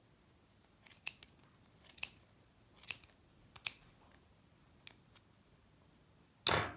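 Scissors snipping through yarn wound on a plastic pompom maker: about five short, sharp cuts roughly a second apart. A brief, louder noise follows near the end.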